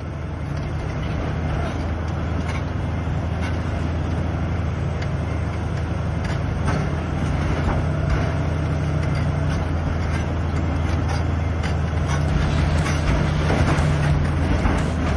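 Large crawler bulldozer's diesel engine running steadily under load, with scattered clanks and knocks from the steel tracks and blade.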